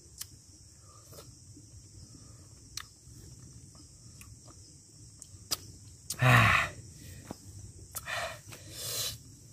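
Steady high buzz of forest insects with scattered small clicks, and a short low grunt falling in pitch about six seconds in, followed by softer murmurs near the end.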